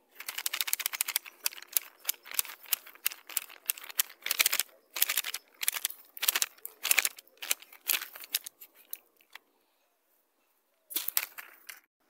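Footsteps crunching on dry leaves and twigs along a dirt bush path: irregular crackles, several a second, that stop about nine and a half seconds in, with a few more near the end.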